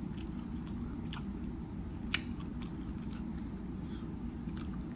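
Close-up chewing of a crispy chicken wing, with soft mouth sounds and scattered small crunches and clicks. The sharpest click comes about two seconds in. A steady low background hum runs under it.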